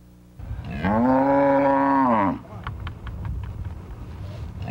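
A black cow mooing: one long call, about a second and a half, that rises and then falls in pitch, with a second moo starting near the end.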